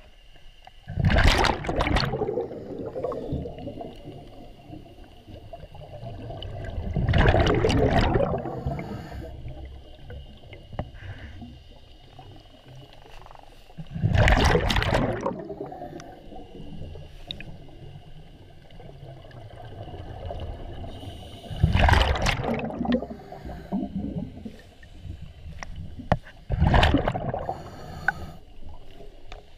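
Water gurgling and rushing around an underwater camera, in loud surges every five to seven seconds with a low rumble between them.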